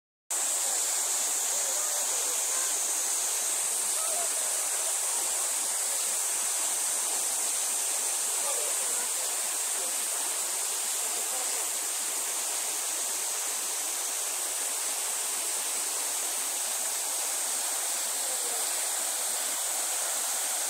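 Steady, even outdoor ambient hiss, strongest high up, with faint brief sounds beneath it.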